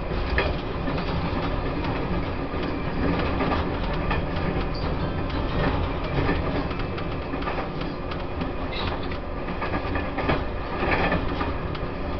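Taiwan Railways E1000 push-pull Tze-Chiang express train running along the line: a steady rolling rumble with scattered clicks of the wheels over the rails.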